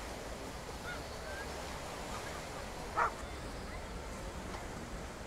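Beach ambience: surf washing on a shingle shore as a steady hiss, with a short loud cry about three seconds in.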